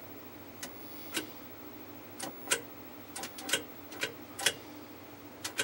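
Sharp, irregular clicks, about a dozen, from an early black-and-white tube TV's channel selector being turned between channels. The loudest come about two and a half and four and a half seconds in.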